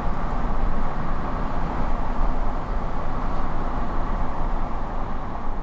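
Steady low rumbling noise, strongest in the lows.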